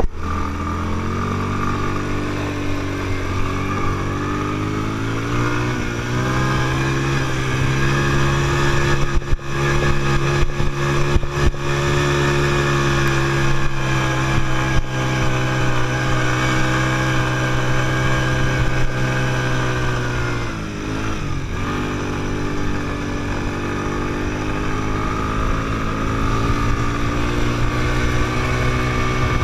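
Quad bike engine running under throttle while riding over sand, its pitch climbing in the first few seconds and then holding steady, dropping briefly about twenty seconds in and climbing again. A few sharp knocks come about ten to twelve seconds in.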